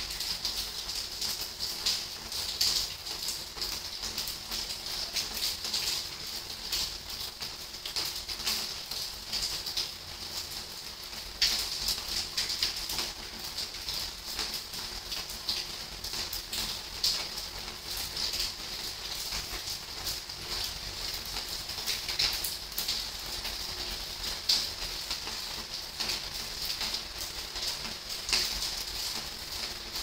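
Rain falling, with many irregular drops tapping sharply on a hard surface over a steady hiss.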